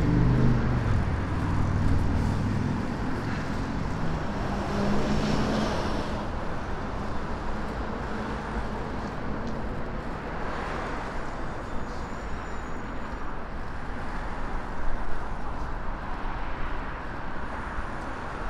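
Steady city traffic noise from a busy multi-lane road. A vehicle's engine hums loudly at the start and fades away over the first few seconds.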